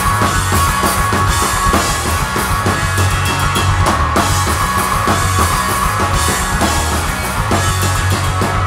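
Punk rock band playing the instrumental opening of a song: a fast, steady drum kit beat with guitars, loud and even throughout.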